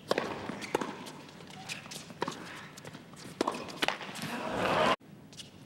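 Tennis ball struck back and forth by racquets in a rally: a series of sharp pops about a second apart. Crowd noise swells near the end, then cuts off suddenly.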